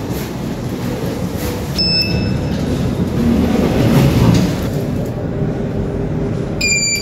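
Passenger lift: a steady low rumble of the car and its sliding doors, with two short electronic chimes, one about two seconds in and one near the end as a floor button is pressed.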